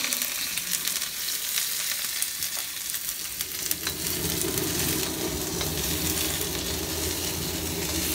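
Chopped onions sizzling in hot oil in a carbon-steel wok, stirred with a metal spoon that ticks and scrapes against the pan. This is the sauté (gisa) that starts a munggo stew.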